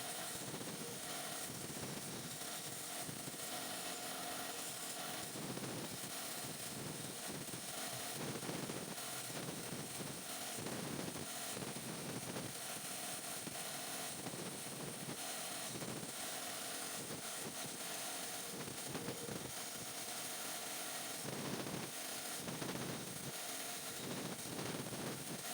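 Woodworking tool at work: a steady mechanical noise broken by irregular strokes about once or twice a second.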